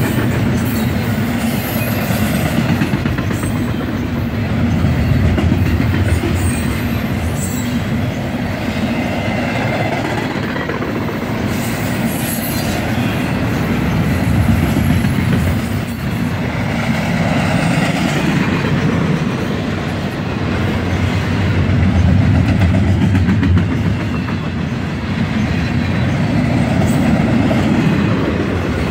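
Double-stack intermodal freight cars rolling past: a loud, steady rumble of steel wheels on the rails that swells and eases every few seconds as the cars go by.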